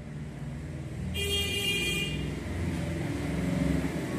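A motor vehicle running, with a short horn sounding about a second in.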